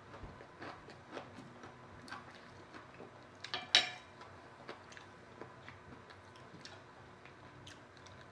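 A person chewing fried noodles with a close, repeated wet clicking of the mouth, about three clicks a second. About three and a half seconds in there is one louder, sharper sound.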